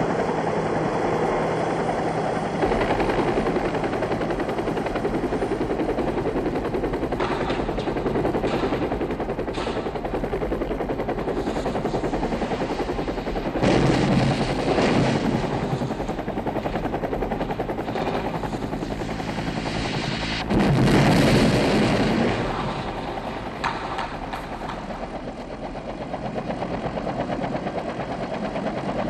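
Combat sound: a helicopter's rotor and engine running steadily under rapid machine-gun and rifle fire, with two louder bursts of fire about halfway through and again about three quarters in.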